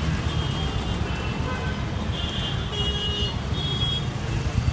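Street traffic: a steady low engine rumble, with short high horn toots about two to four seconds in.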